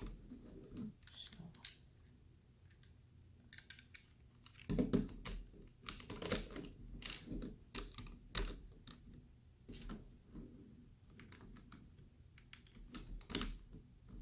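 Plastic LEGO pieces clicking and knocking as they are handled and pushed together, in irregular clicks that come thickest around the middle.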